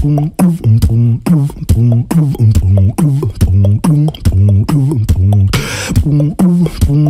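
Beatboxer performing a beat with his mouth and voice: a deep pitched bass line under sharp kick and snare clicks in a steady rhythm, with a hissing cymbal-like burst about six seconds in.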